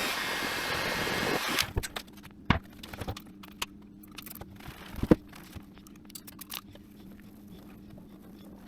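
A steady hiss that cuts off suddenly about a second and a half in, followed by scattered light clicks and taps.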